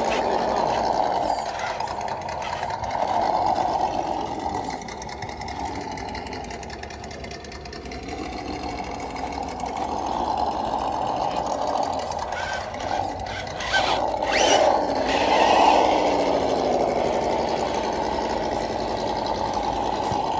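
Electric RC scale crawler truck's motor and gear drivetrain whining, the pitch rising and falling as the throttle is fed in and eased off while it crawls. A few clicks and knocks come about two-thirds of the way through.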